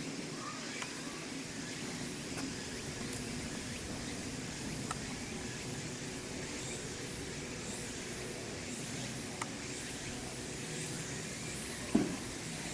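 Steady outdoor background hiss with a few faint ticks, and one short low knock near the end.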